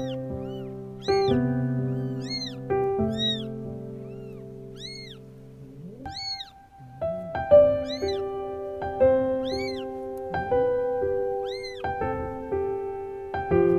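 Newborn kittens mewing: about a dozen short, high-pitched cries, each rising and falling in pitch, over soft piano background music.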